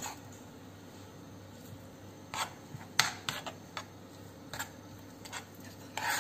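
Metal spoon scraping and knocking against a metal frying pan as melted jaggery and grated coconut are stirred together, in a series of short, irregular strokes.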